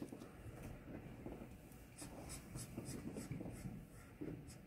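Twin-tip art marker nib scratching over sketchbook paper in short colouring strokes, faint. The strokes come sparsely at first, then about four a second from about two seconds in.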